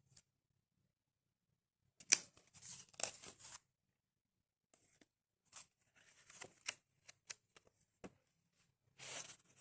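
Paper and cardboard of a lapbook being handled: irregular rustles as flaps and pages are turned, with a few light clicks and taps between them.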